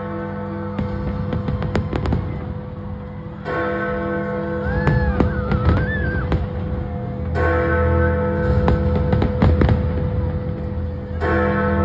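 A large bell striking slowly, a new stroke about every four seconds, each one ringing on, under the bangs and crackle of fireworks bursting.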